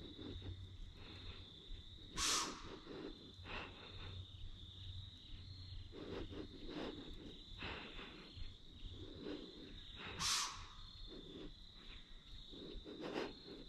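Crickets trilling in one steady, unbroken high note, with two short louder sounds about two seconds in and again about ten seconds in.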